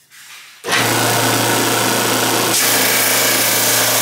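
Flatmaster drum sander running: a steady motor hum with the loud hiss of the spinning sandpaper drum, coming in suddenly about two-thirds of a second in. About halfway through the hiss grows brighter and harsher as a board is fed across the drum and sanded.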